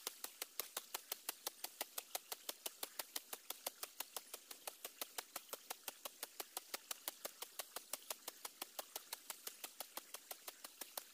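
A bunch of stinging nettle stems whipped rapidly and evenly against a bare wrist, light leafy slaps about seven a second in a steady rhythm.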